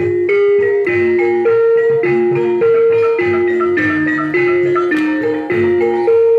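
Gamelan music accompanying an ebeg dance: mallet-struck keyed instruments play a repeating melody, the notes changing about twice a second, over a steady low beat.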